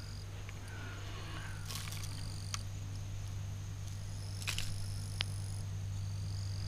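Evening insect chorus: crickets trilling in steady high tones that start and stop, over a constant low hum, with a few light clicks of handling.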